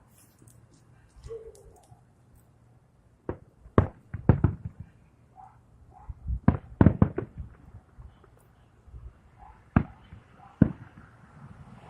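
Fireworks exploding overhead: an irregular string of sharp bangs, a few single reports and two quick clusters of several bangs each, with short pauses in between.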